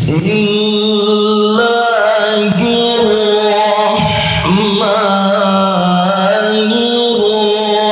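A man chanting Qur'anic recitation (tilawah) in Arabic into a microphone. Long held notes with melismatic ornaments come in abruptly, with short breaks in the line before each new phrase.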